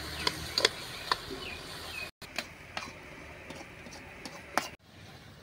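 Metal ladle knocking and scraping against an aluminium karahi as chicken curry is stirred: a handful of sharp, separate clicks over a low hiss.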